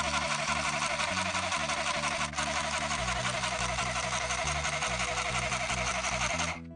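Small handheld electric sewing machine running steadily in a fast stitching rhythm, with a brief hitch about two seconds in; background music continues underneath.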